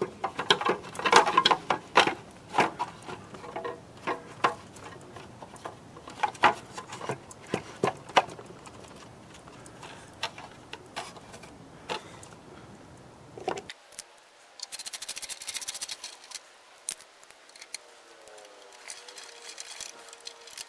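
Plastic housing parts of a Mosquito Magnet Patriot Plus being handled and fitted together by hand: an irregular string of clicks and knocks, busiest in the first half. About fourteen seconds in, the sound changes abruptly and a brief run of fast, fine ticking follows.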